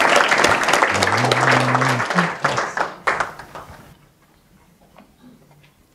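Audience applauding, dying away about three seconds in, followed by faint scattered clicks.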